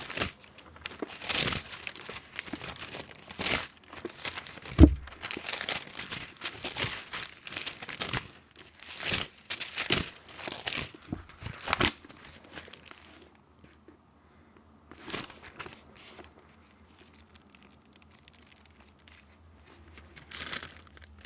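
Thin Bible pages flipped and riffled by hand close to the microphone: a quick run of papery rustles and crinkles, with one sharp thump about five seconds in. The rustling thins out after about twelve seconds to a few faint page turns.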